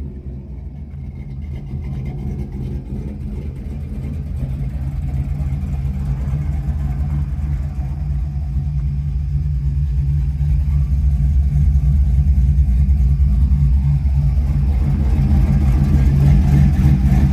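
Pickup truck engine idling steadily with a deep, even rumble, growing gradually louder.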